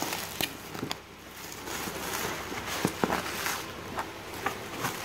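Clear plastic shrink-wrap crinkling and rustling as it is pulled and torn off a cardboard camera box, with scattered sharp crackles.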